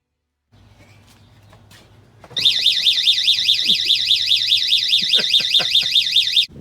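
The siren of a Viper 3121 power sports alarm, set off by a theft attempt. It is a loud electronic tone warbling quickly up and down, about seven sweeps a second, starting about two seconds in and cutting off suddenly near the end. Before it come a few faint clicks over a low hum.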